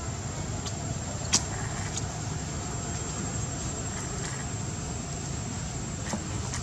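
Steady outdoor background noise: a low rumble under a thin, high, steady whine, with a few sharp clicks, the loudest just over a second in.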